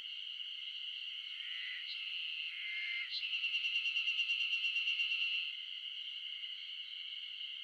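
Dense chorus of Ezo spring cicadas (Terpnosia nigricosta), a steady high-pitched shrill. About three seconds in, one nearer cicada's pulsing song rises over it, about six or seven pulses a second, and stops after a couple of seconds.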